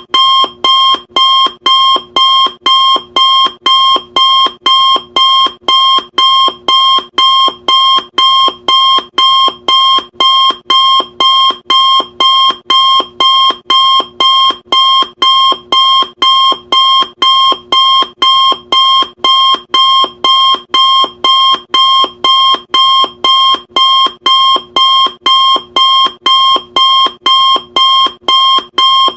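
Loud electronic timer alarm beeping in an even, unbroken rhythm of about two short beeps a second, each beep the same high, bright tone.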